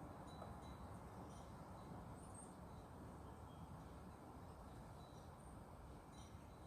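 Quiet outdoor ambience: a few faint, short bird chirps here and there over a low, steady wind rumble.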